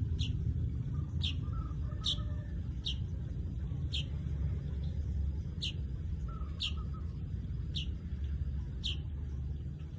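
Manyar weaver bird giving its call: short, sharp, high notes that drop quickly in pitch, repeated about once a second. A steady low rumble runs underneath.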